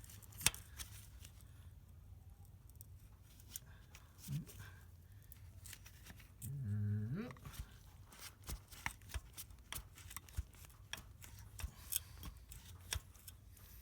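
Sharp metallic clicks and ticks from a wrench working a seized, broken exhaust manifold bolt back and forth in the cylinder head of a Chevy 5.3 Vortec, sparse at first and coming thick and fast in the second half. Ticking like this he takes as a sign the bolt may be about to snap off. A short hum of a voice about halfway through.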